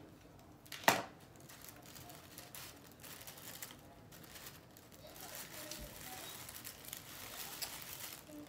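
Plastic wrapping crinkling and rustling as it is handled and pulled off, with one sharp click about a second in. The rustling grows louder over the second half.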